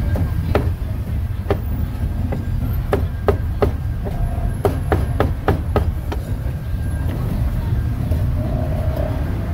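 Cleaver chopping grilled meat on a wooden block: sharp, irregular strikes with a quick run of chops in the middle, over a steady low rumble.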